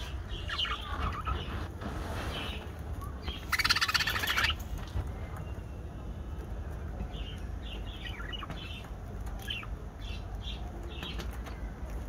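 A pair of budgerigars chirping in short, high calls. About three and a half seconds in comes a second of rapid wing flapping as a budgie flies onto the perch, followed by scattered chirps.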